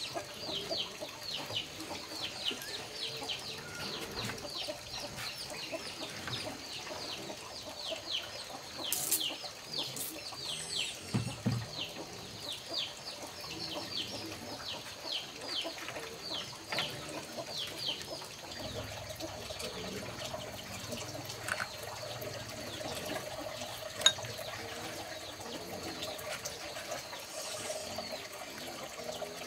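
Chicks peeping in a fast run of short falling chirps, two to three a second, thinning out after about eighteen seconds. A single sharp knock comes near the end.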